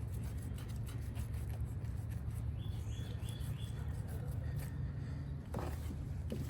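A bird calls briefly, a few short high chirps lasting about a second near the middle, over a steady low hum.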